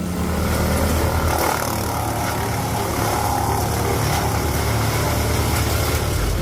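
Large wood chipper running: a steady engine drone with a dense, rough noise over it.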